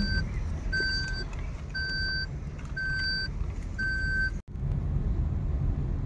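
A car's electronic warning beeper sounds about once a second, five half-second beeps, over the low rumble of the engine and tyres heard from inside the cabin. The beeping stops abruptly at a cut about two-thirds of the way in, after which only the steady driving rumble continues.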